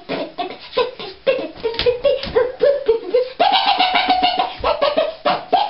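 Electronic keyboard playing a melody of short stepping notes over its built-in drum rhythm, with one longer held note about three and a half seconds in.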